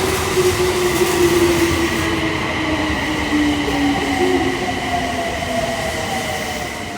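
Toei Mita Line subway train running into the station and slowing. Its motor whine falls slowly in pitch, with a steady high tone above it, and the running noise eases toward the end.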